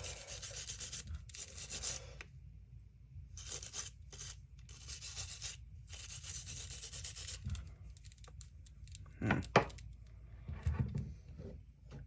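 Brush scrubbing caked crud off the metal parts of a DeWalt DCF885 impact driver in repeated rasping strokes, then two short knocks near the end.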